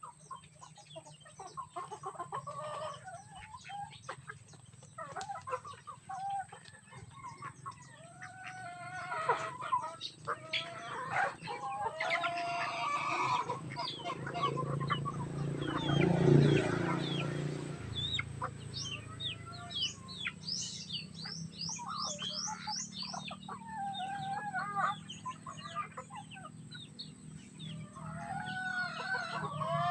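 Chickens clucking continuously in many short calls. A louder rushing noise swells and fades about halfway through.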